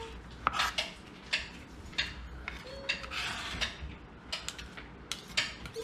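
Kitchen knife knocking and scraping on a plastic cutting board as diced red onion is gathered up: irregular sharp knocks, with a longer scrape about three seconds in.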